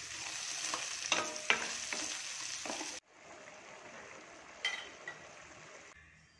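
Oil sizzling in a steel kadai as garlic cloves, a curry leaf and a dried red chilli fry for the tempering, with several sharp pops and clicks. About three seconds in it cuts to a quieter steady sizzle from the pan, with one more click.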